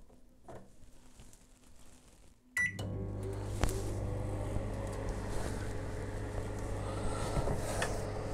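Samsung MG23K3614AK grill microwave oven starting up about two and a half seconds in with a short beep, then running steadily with a low mains hum and fan noise. It starts on its own once the time is set on the knob.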